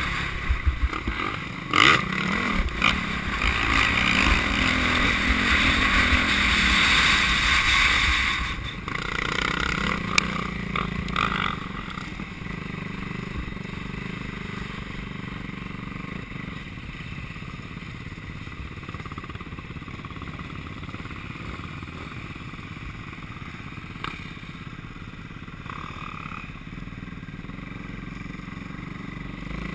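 Motocross bike heard from an onboard camera while it is ridden hard on a dirt track: the engine revs and pulls with wind rushing over the microphone, loudest for the first several seconds, then quieter and steadier from about ten seconds in as the bike eases off. A few sharp knocks stand out early on, at about two and about ten seconds in.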